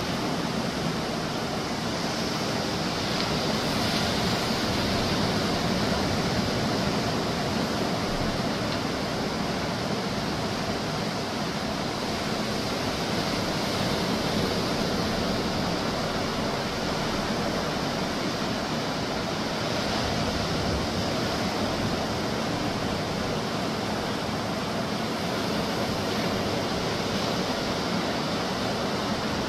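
Surf breaking on a Gulf of Mexico beach: a steady wash of noise that swells and eases slowly.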